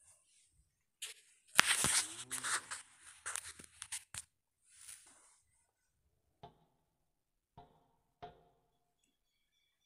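Stainless steel bowl scraping and rattling as ingredients are tipped from it onto chopped vegetables in a mixing bowl: a loud clattering rustle for about three seconds, then three light metal clinks about a second apart.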